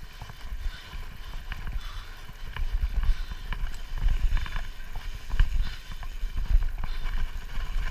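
Mountain bike riding over a rough dirt track, picked up by a camera mounted on the handlebars: a constant low rumble of bumps and wind on the microphone, with irregular clicks and rattles from the bike.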